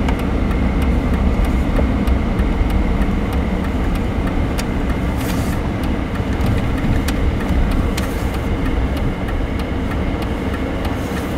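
Car engine and road noise heard inside the cabin, easing off slightly as the car slows from about 25 mph to about 10 mph, with the turn signal ticking.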